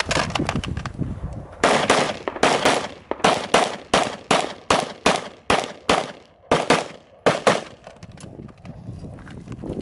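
A rapid string of about fifteen handgun shots, about three a second, beginning a couple of seconds in and stopping shortly before the end, with running footsteps on dirt before and after.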